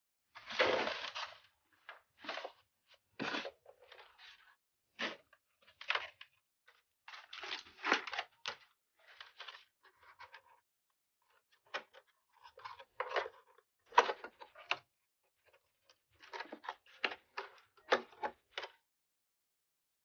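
Handling noise from a PlayStation 5 being taken apart by hand: irregular short clicks, scrapes and rustles of its parts, with silent gaps between them.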